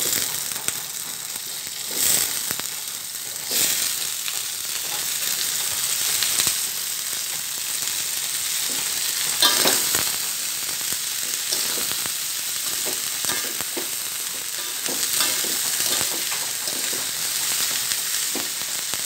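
Freshly washed papaya flowers sizzling steadily as they are tipped into hot oil in a metal wok and stirred. A metal spatula scrapes and knocks against the wok now and then.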